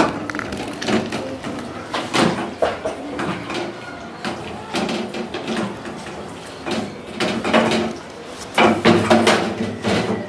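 Hand mixing raw potato sticks coated in egg, rice flour and spices in a stainless steel bowl: irregular wet taps and scrapes of the potato pieces against the steel.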